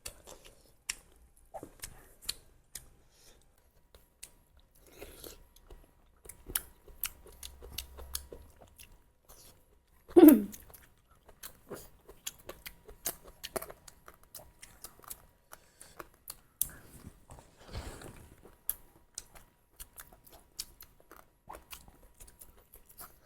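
Close-miked chewing and biting of spicy duck curry: wet mouth clicks and small crunches. About ten seconds in there is a short, loud sound falling in pitch.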